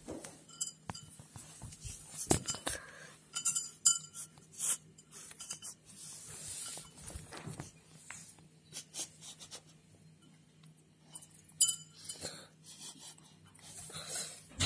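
A kitten eating from a ceramic food bowl: short, ringing clinks at irregular intervals as its teeth and food knock against the bowl.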